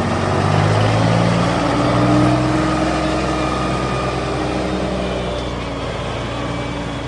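Deutz-Fahr farm tractor's diesel engine working close by, its note rising over the first couple of seconds and then easing off to a steadier, slightly lower run.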